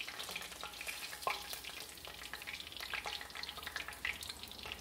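About a quarter inch of hot vegetable oil crackling and popping in a cast iron skillet as fried chicken pieces are lifted out with tongs, with one sharper click a little over a second in.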